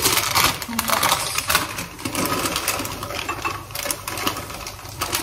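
Clear plastic bag of peanuts crinkling and crackling as it is handled, in dense irregular bursts.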